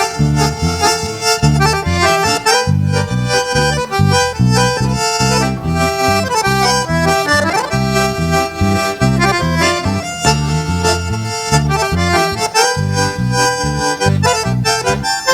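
Sertanejo band playing an instrumental passage of a trucker song, with the accordion leading over a pulsing bass rhythm.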